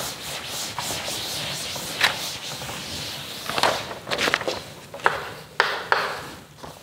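A cloth rubbing across a chalkboard, wiping it clean with a steady scratchy swish. This is followed, in the second half, by a few short, sharp chalk strokes as writing starts on the board.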